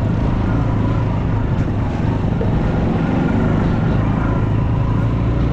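Engine of a homemade three-wheeled all-terrain motorcycle running steadily while riding, a constant low drone.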